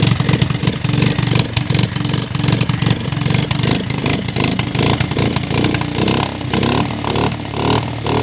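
A Bajaj Discover's single-cylinder twin-spark four-stroke engine runs just after being started, with the throttle blipped a few times in the second half. It fires a little unevenly, a slight misfire that the mechanic puts down to the bike having stood unused for over a year and expects to clear as the engine warms.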